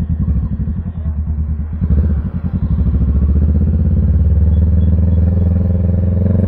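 Kawasaki Z650's parallel-twin engine pulling away at low speed, getting louder as the throttle opens about two seconds in, then running steadily with its note rising slowly as the bike gathers speed.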